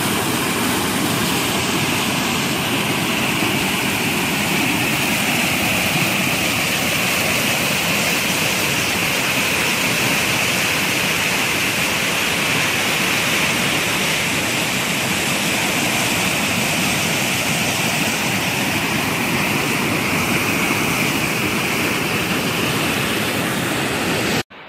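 Mountain waterfall heard close up: loud, steady rushing of heavy falling water, cutting off suddenly near the end.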